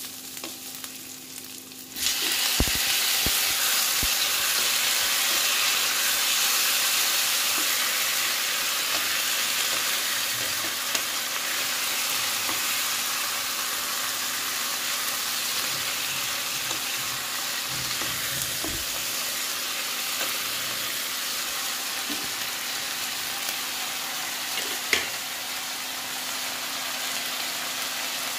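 Onions, green chillies and tomato pieces frying in oil in a metal kadai while a spatula stirs them. The sizzle jumps up suddenly about two seconds in and then holds steady and loud, with a few sharp knocks of the spatula against the pan.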